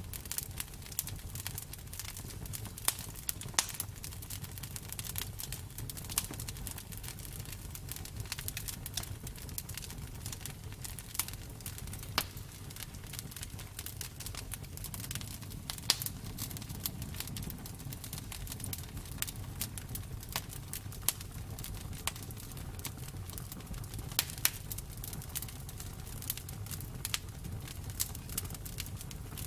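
Campfire burning steadily with a low rumble and irregular crackles and sharp pops of burning wood.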